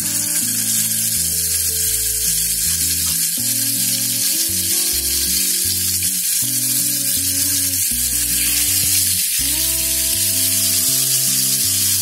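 Chicken drumsticks shallow-frying in hot oil in a pan: a steady sizzle, with background music underneath.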